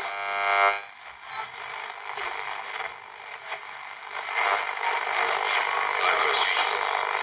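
Tesla PUK pocket radio tuned between stations, its small speaker giving out a steady hiss of static. A short buzzy tone sounds in the first second, and the static grows louder about four seconds in.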